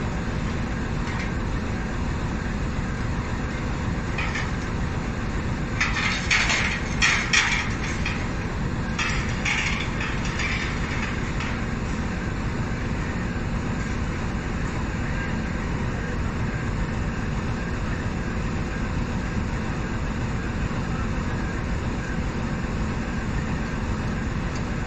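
Steady low rumble of a departing passenger train and the rail yard around it. A cluster of short, sharp higher-pitched sounds comes about six to eleven seconds in.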